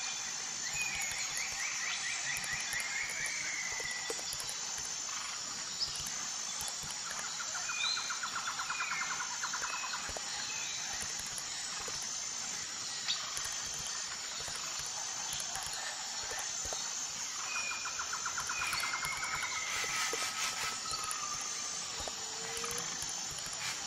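Outdoor nature ambience: birds chirping, with several trilled calls, over a steady high-pitched drone that pulses about once a second.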